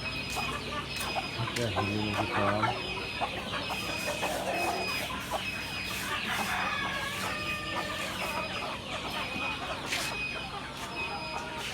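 A flock of Hilli chickens clucking and calling over one another, with a rooster crowing. A short high chirp repeats about once a second throughout, over a low steady hum.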